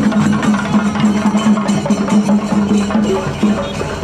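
Dhol drums playing fast and hard, a dense run of rapid strikes with no let-up.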